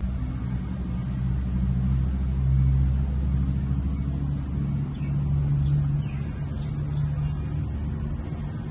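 A low engine rumble with a steady hum, like a motor vehicle running. It comes in abruptly and swells a little in the middle.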